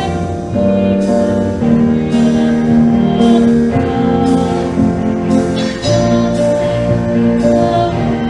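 Worship music: held chords that change every second or two, each change struck sharply.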